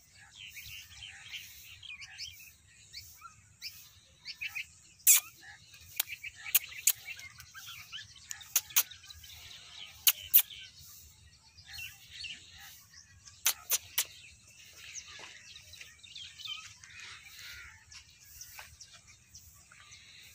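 Small birds chirping and twittering all through, with a dozen or so sharp, loud clicks, some in quick pairs and threes, between about five and fourteen seconds in.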